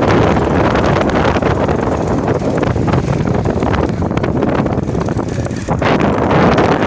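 Loud wind buffeting the microphone: a steady rushing rumble with rapid gusty thumps and no clear engine tone.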